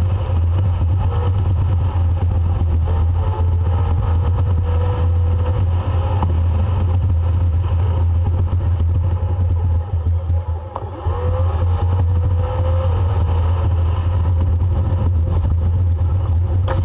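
Plow truck driving, its engine and road noise heard from inside the cab as a steady low drone, with a faint pitch that rises and falls. The drone dips briefly about ten seconds in.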